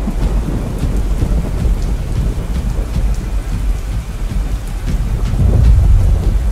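Storm sound effect: steady heavy rain over a deep rumble of thunder that swells louder near the end.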